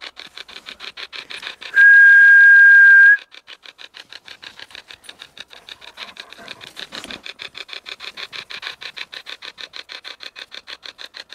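Hack shack spirit box, a modified Radio Shack radio, sweeping through stations in a rapid choppy stutter of static and snatches of broadcast sound, many times a second. About two seconds in, a loud steady high tone cuts in for about a second and a half.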